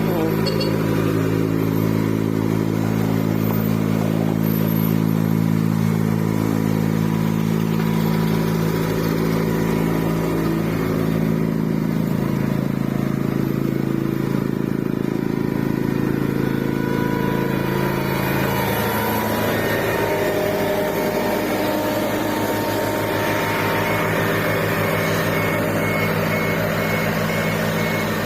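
HAMM road roller's diesel engine running steadily, its note stepping lower twice partway through. A faint repeating high beep starts near the end, like a reversing alarm.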